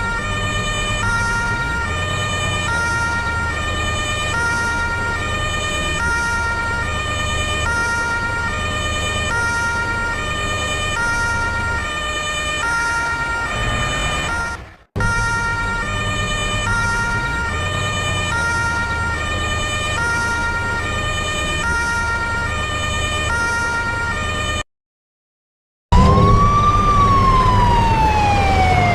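Truck 'telolet basuri' musical horn playing a short repeating tune of stepped notes over a low engine rumble; it cuts off twice. Near the end the horn switches to a siren-like wail that falls and then rises.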